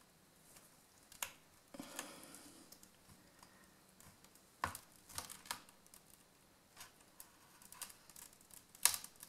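Faint, scattered clicks and short scrapes of a plastic card being worked under the edge of a MacBook Pro's cracked display glass, prying it off its adhesive; the sharpest click comes near the end.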